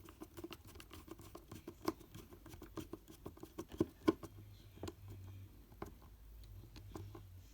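Irregular light clicks and taps of a plastic multimeter case being handled at its battery compartment, with a few sharper clicks about two and four seconds in.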